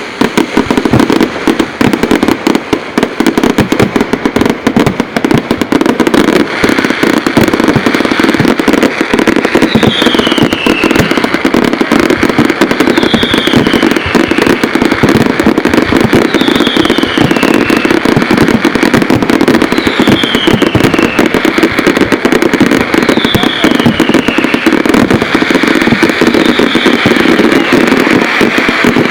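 A fireworks display going off in a loud, dense, continuous barrage of bangs and crackles. From about ten seconds in, a short falling whistle repeats about every three seconds over it.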